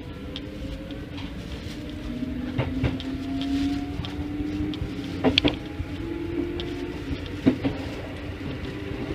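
Keikyu 1500-series electric commuter train running, heard from the cab: the traction motors whine, rising slowly in pitch as the train picks up speed, over a steady running rumble. The wheels clack over rail joints a few times, in pairs near the middle.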